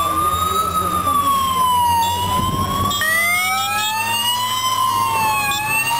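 Wailing sirens of a police motorcycle escort, rising and falling slowly, with a second siren joining about three seconds in, over a steady low engine hum.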